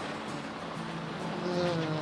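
Background music, with a held melody note that falls slightly in pitch in the second half.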